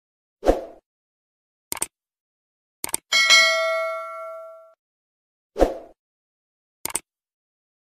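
Subscribe-button animation sound effects. There is a short soft sound, then two mouse clicks and a notification-bell ding that rings out and fades over about a second and a half. The soft sound and a click then come round again.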